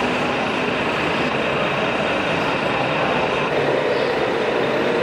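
Radio-controlled model vehicle running, a steady, even mechanical noise with no breaks.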